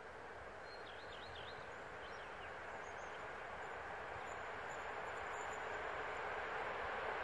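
Distant passenger train hauled by an EP07 electric locomotive, approaching: a faint, steady rushing that grows gradually louder.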